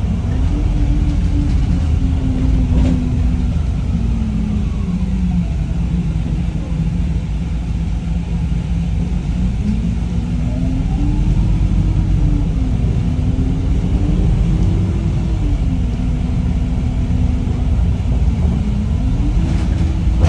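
Wright StreetLite bus's diesel engine and road rumble, with the engine note climbing and dropping several times as the bus accelerates and changes gear. Two brief knocks, about three seconds in and near the end.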